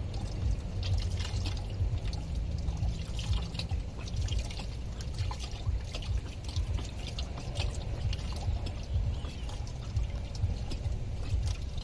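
Old engine coolant draining out of a 2003 Toyota Camry's radiator drain petcock, trickling and splashing steadily, over a constant low background rumble.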